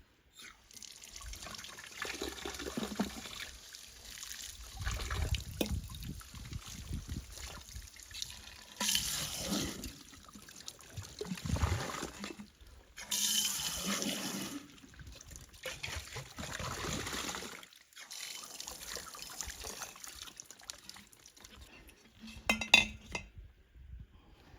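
Water running and splashing at a sink in uneven spurts, with a sharp clink or knock near the end.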